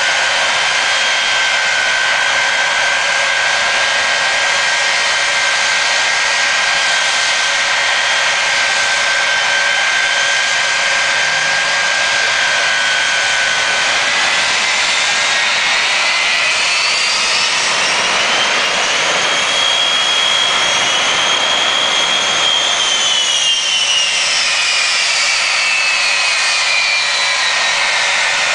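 Jet engines of two jet trucks running at the start line with a loud turbine whine. About halfway through the whine climbs in pitch as the engines spool up, then it falls away again near the end.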